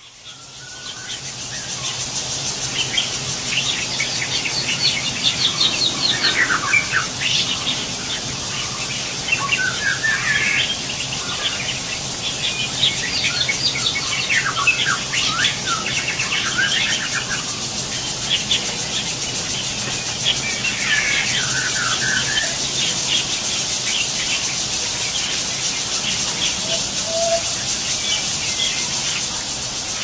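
Taiwan barbets calling: bunches of rapid, high-pitched squealing chirps, thickest in the first half and again a little past the middle, over a steady high hiss. The squeals fit the begging of a bird being fed.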